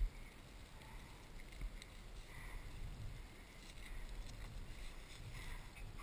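Faint, uneven rustling of tall grass as a person and a dog move through it, with light wind noise on the camera microphone.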